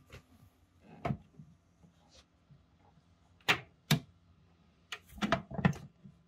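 Hard plastic clicks and knocks as the top unit of a Nurture Right 360 incubator is fitted back onto its clear plastic base: a single click about a second in, two sharp clicks around the middle, then a quick run of knocks near the end.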